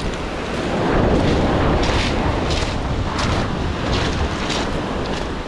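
Wind buffeting the microphone over surf washing onto a pebble beach, the rumble growing heavier about a second in. Short crunches of footsteps on the stones come through about twice a second.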